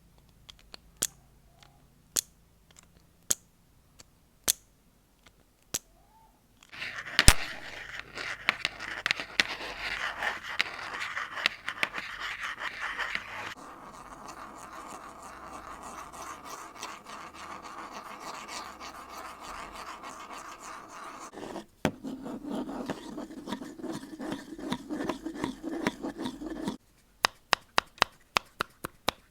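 A run of close-miked ASMR trigger sounds: single sharp taps about once a second, then a long stretch of scratching and rubbing that changes texture twice, and quick regular tapping near the end.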